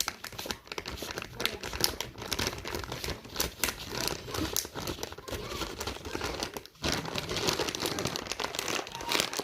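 Slime being squished and pulled apart by hand, with a dense, irregular crackling and popping throughout.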